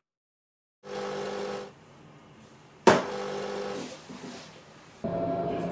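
A buzzing tone in repeated bursts about a second long, roughly two seconds apart. Near the middle a laptop lid is snapped shut with one sharp click, and near the end there is a short scraping noise as the desk chair is pushed back.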